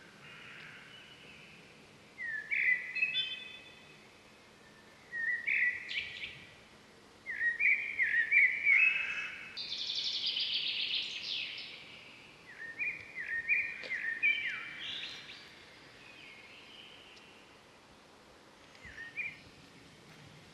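Birds singing in several phrases a few seconds apart, each a run of quick, repeated chirping notes, over a faint steady background hiss.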